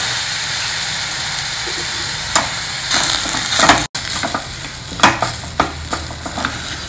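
Mashed potato stuffing sizzling steadily in a hot pan after a sprinkle of water. From about four seconds in, a wooden spatula scrapes and knocks against the pan in quick, irregular strokes as the potatoes are stirred, over a fainter sizzle.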